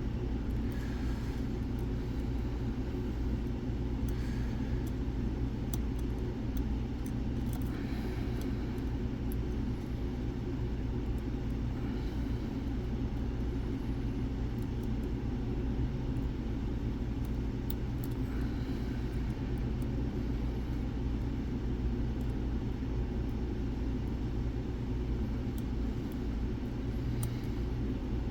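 A steady low mechanical hum, with a few faint light clicks from lock picks working the pins of a Kenaurd, a Mul-T-Lock clone.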